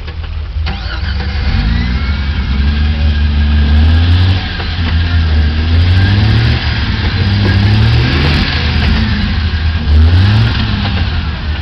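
Jeep Wrangler YJ's engine revving under load as it rock-crawls up a boulder-strewn creek bed, its pitch rising in about four surges.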